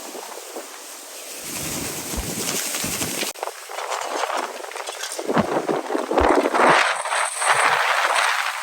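Strong gusting wind buffeting the microphone in surges, with a sudden break about three seconds in and the loudest gusts in the second half.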